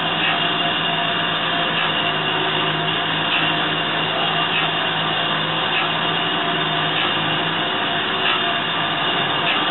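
DoAll surface grinder running under power, a steady machine hum and hiss from its spindle motor and wheel, with faint light ticks roughly once a second.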